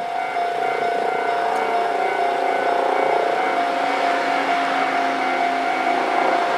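Railway level-crossing alarm ringing with a steady high tone, while a two-car KiHa 40 and KiHa 48 diesel railcar set approaches. The diesel engine note and the rail noise grow louder from about halfway through.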